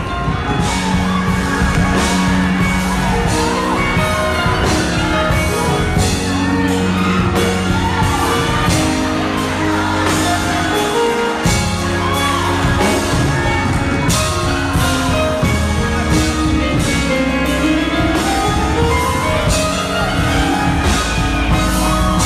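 Live church music: a voice singing into a microphone over a band with a steady drum beat and sustained bass, with shouts and whoops from the congregation, in a large hall.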